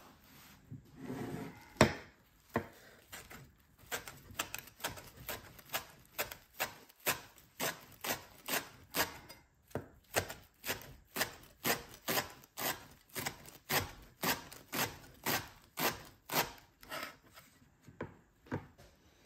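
Chef's knife chopping fresh flat-leaf parsley and oregano on a wooden cutting board: a steady run of blade knocks on the board, about two a second, that thins out near the end.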